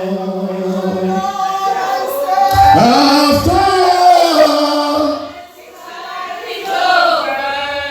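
Slow gospel song sung with musical accompaniment, long held sung notes over low bass notes, dropping away briefly about five and a half seconds in before the singing resumes.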